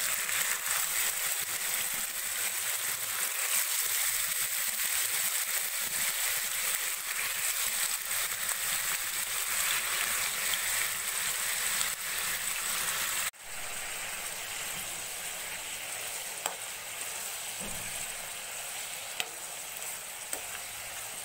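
Turmeric-and-ginger-garlic-marinated prawns sizzling as they fry in hot oil in a kadai, a steady hiss. About 13 seconds in it cuts to a quieter sizzle with a few pops, as the prawns give off their water.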